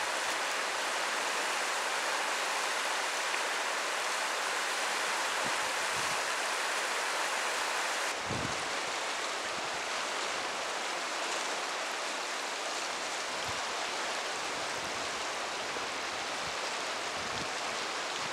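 River water rushing over shallow gravel riffles: a steady, even rush that drops slightly in level about eight seconds in as the view changes.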